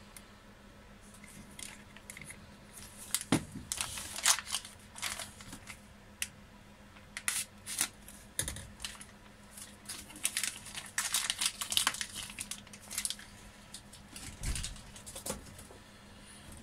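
Plastic parts bag crinkling and rustling as it is handled and cut open with a folding knife, with many sharp irregular clicks. Three dull knocks sound on the workbench.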